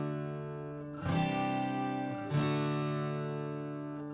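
Background music: an acoustic guitar strumming slow chords, a new chord about a second in and again past two seconds.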